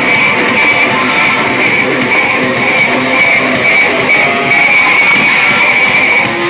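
Live noise rock from a bass-and-drums duo: heavily distorted bass guitar and drum kit playing together as one loud, dense wall of sound, easing off slightly near the end.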